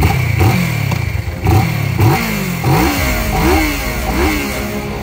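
Kawasaki motorcycle engine, standing still, revved in about six short throttle blips, each rising and falling in pitch.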